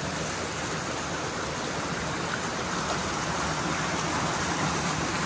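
Flowing stream water, a loud, steady rush.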